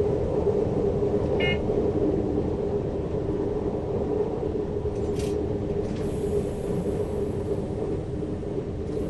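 Diesel train running along the track, heard from the driver's cab: a steady rumble with a constant hum, and a brief high chirp about a second and a half in.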